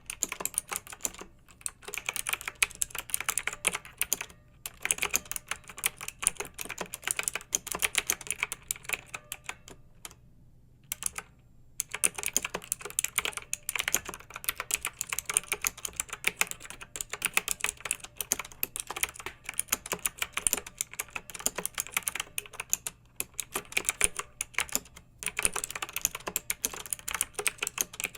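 Clicky mechanical keyboard typing: rapid runs of sharp keystroke clicks with short pauses between bursts, the longest about a second and a half near the middle.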